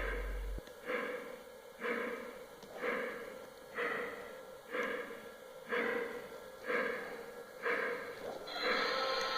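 Toy steam train's chuffing sound effect: a hissy chuff about once a second in an even rhythm over a faint steady hum. A sustained tone, like a whistle or tune, starts near the end.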